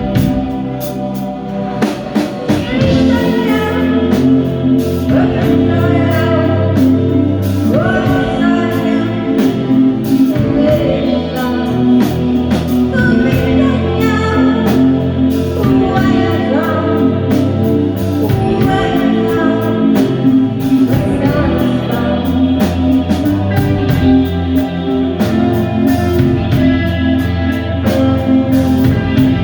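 A live band playing a song: singing over electric guitar, bass and drums. The voice comes in about two and a half seconds in.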